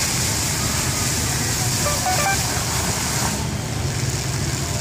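Water fountain jets hissing over a steady low rumble; the high hiss cuts off about three and a half seconds in as the tall central jet drops away. Faint voices come through about two seconds in.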